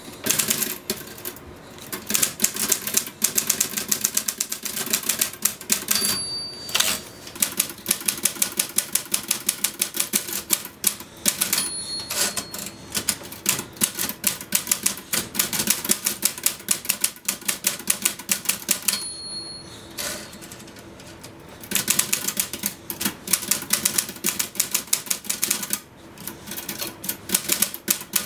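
Typewriter typed fast and frantically: rapid runs of key strikes with brief pauses, and the margin bell dings three times, at about 6, 12 and 19 seconds in.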